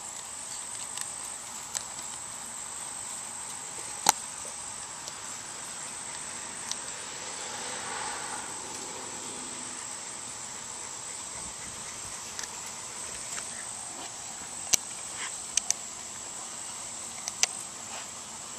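Sharp little clicks and ticks of a small hex key working the screws of a shotgun side-saddle shell holster against the metal receiver, one louder click about four seconds in and several more near the end, over a steady high hiss.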